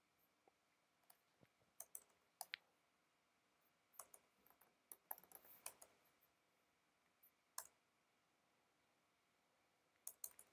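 Faint, irregular clicks of a computer keyboard and mouse, about fifteen of them, some in quick pairs and a cluster in the middle, over near silence.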